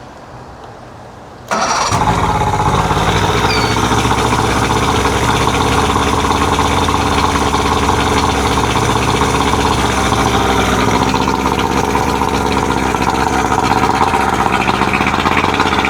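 1999 Johnson 70 hp two-stroke outboard motor catching and starting about a second and a half in, then running steadily, its carburetor air mixture screws just set out to three and a half turns.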